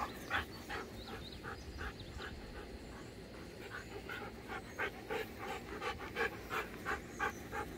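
A husky panting hard with its mouth open, about three quick breaths a second, easing off briefly in the middle; the dog is out of breath from running.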